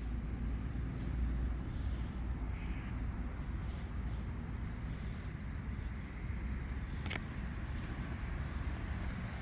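Steady low outdoor rumble with a faint hiss, like wind on the microphone or distant traffic, with one sharp click about seven seconds in.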